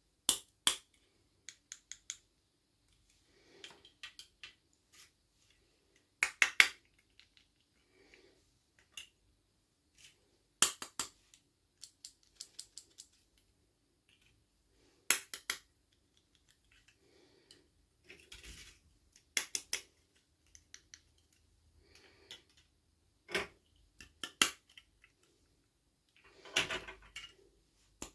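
Small plastic toys and their packaging being handled: scattered sharp clicks and snaps of plastic in small clusters, with short rustles of packaging about two-thirds of the way in and near the end.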